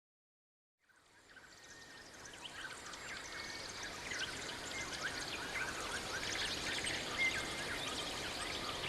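Outdoor wildlife ambience: many small, quick chirping calls over a steady hiss, fading in after about a second of silence and slowly growing louder.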